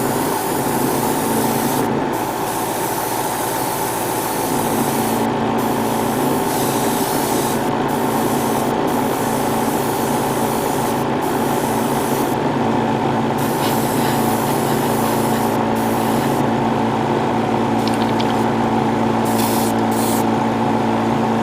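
Airbrush compressor running steadily under the hiss of an airbrush spraying paint. The hiss cuts out briefly several times as the trigger is let off and pressed again.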